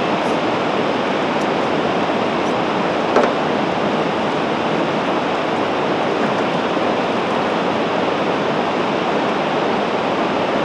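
Steady rushing of water pouring through the open spillway gates of a dam, an even, unbroken noise. A single brief knock sounds about three seconds in.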